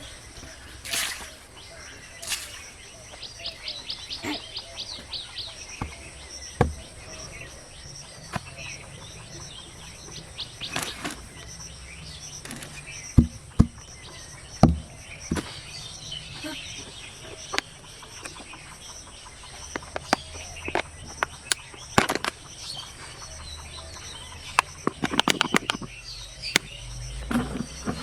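Birds chirping in quick high runs, with a faint steady high whine behind them, over scattered sharp clicks and knocks.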